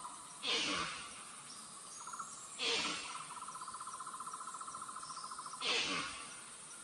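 Three short, harsh, hissing screech calls from an animal, spaced two to three seconds apart. Between the second and third call a fast, evenly pulsing trill holds one pitch for about three seconds.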